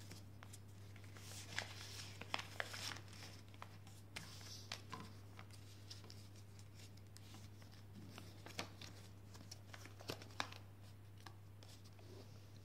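A sheet of paper being folded and creased by hand: faint crinkling and rustling with scattered sharp crackles, over a steady low hum.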